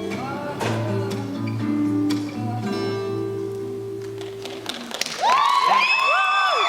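Guitar playing the song's final chords and letting them ring out. About five seconds in, the audience breaks into loud cheering with high-pitched whoops and applause.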